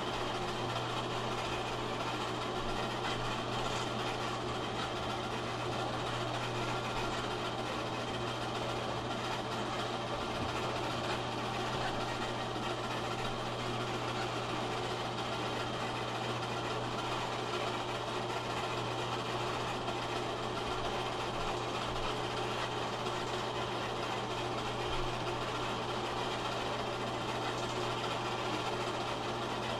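Steady mechanical running noise with a low hum from an 8mm film projector, unchanging throughout.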